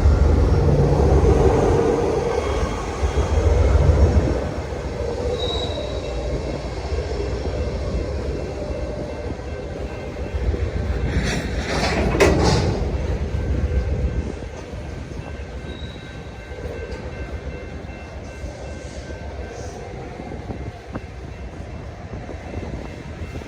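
Train cars rolling past with a heavy low rumble and faint high wheel squeals, with a louder clattering burst about twelve seconds in. The sound then fades as the train draws away.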